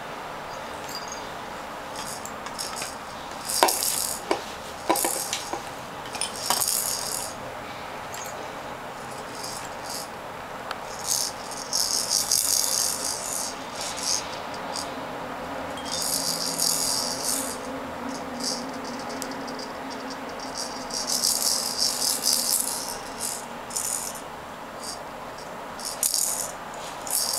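Baby's plastic rattle toys shaken in repeated bursts, a dry high rattling that comes and goes about seven times, with a few sharp clicks of toys knocking together a few seconds in.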